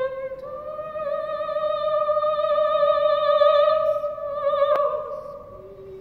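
Female opera singer holding one long high note with vibrato, sliding up a little at the start and fading away about five seconds in. A single sharp click comes just before the note ends, and harp notes follow near the end.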